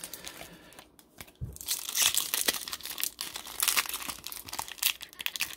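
Crinkling of a baseball card pack's shiny wrapper as it is handled in the fingers, starting a couple of seconds in after a few light clicks.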